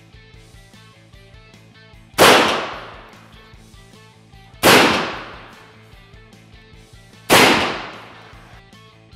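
Three shots from an unshrouded AirForce Texan .357 big bore air rifle, about two and a half seconds apart. Each is a sharp loud report that trails off over about a second, with a peak measured at about 121 dB.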